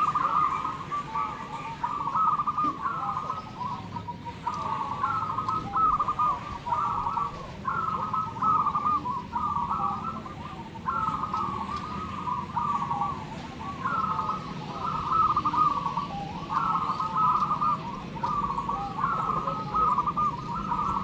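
Many zebra doves (perkutut) cooing at once, their repeated rhythmic phrases overlapping with almost no gaps, over a low steady background rumble.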